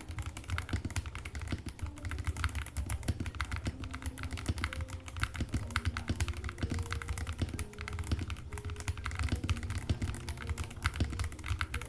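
Continuous fast typing on a GK75 custom mechanical keyboard with Leobog Grey Ash Wood switches, Cherry-profile PBT keycaps and a PC plate: a dense, uneven run of key clicks and clacks.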